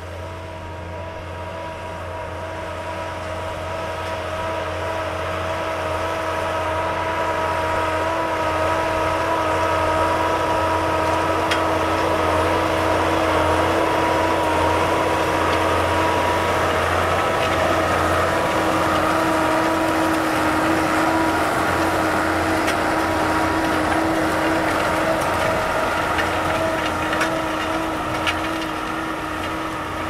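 Diesel tractor engine running steadily under load as it pulls a disc harrow through the soil, a constant droning hum that grows louder over the first ten seconds as it comes closer and eases off near the end.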